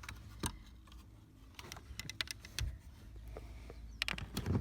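Scattered light clicks and knocks of plastic trim parts being handled, with a dull thump about halfway through and a quick cluster of clicks near the end, over a low steady hum.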